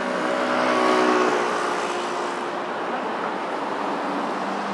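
Road traffic on a busy city street: a vehicle passes close, its engine hum and tyre noise swelling about a second in and then fading, over a steady wash of traffic.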